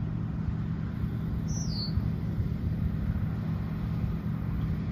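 Steady drone of a large diesel engine running at an even speed, a low hum with no revving. One short falling bird chirp about a second and a half in.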